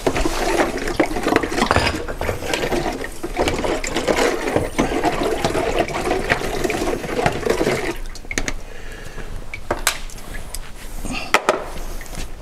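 Drained engine coolant pouring and splashing in a basin for about eight seconds, then stopping, followed by a few light knocks.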